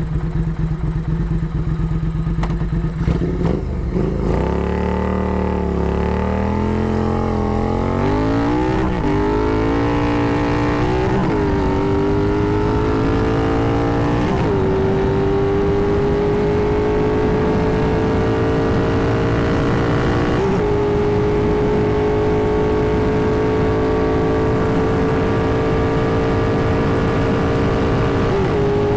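Triumph Thruxton R 1200 cc parallel-twin running loud through Meerkat racing mufflers. It pulls away and accelerates, the engine note climbing steadily, with several brief dips as it shifts up through the gears.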